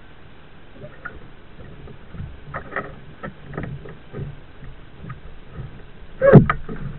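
Kayak paddling: irregular paddle strokes splashing and dripping beside a plastic kayak hull. A much louder sudden thump comes about six seconds in.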